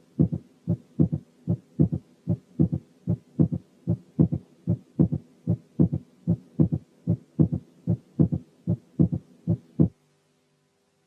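Heart sounds heard through a stethoscope from a patient with a third heart sound (S3), an extra low, dull sound after the second heart sound. The beats come in a quick, even run and stop about a second before the end.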